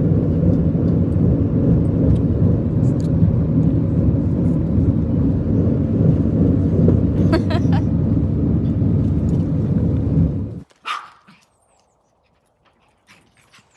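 Steady road and engine rumble inside a moving car's cabin, cutting off abruptly about ten and a half seconds in. Just after, a dog gives one short bark.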